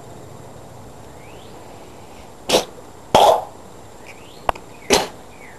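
A girl coughing: three short, sharp coughs in the second half, the middle one a little longer, with a brief click between the last two.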